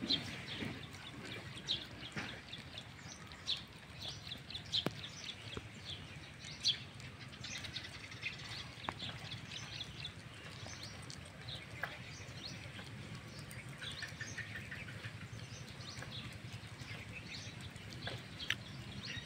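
A puppy eating rice from a plate, with small wet chewing and smacking sounds, while birds chirp around it.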